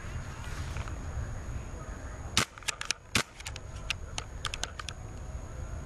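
Paintball markers firing: sharp pops starting about two and a half seconds in, the loudest two under a second apart, followed by a quick run of fainter shots and another loud pop at the very end.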